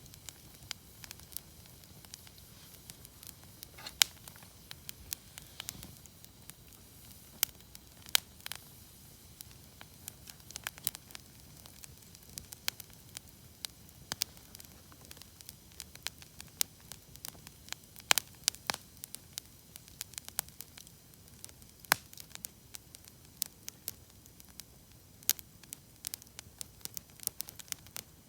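Wood campfire burning with a faint steady hiss and frequent irregular crackles and sharp pops.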